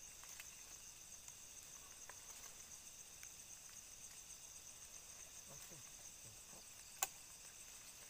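Faint, steady high-pitched chorus of crickets and other insects, with one sharp click about seven seconds in.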